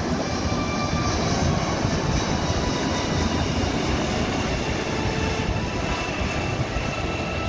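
The four turbofan engines of a C-17 Globemaster III military transport jet, heard as a steady rushing rumble while the plane flies past overhead.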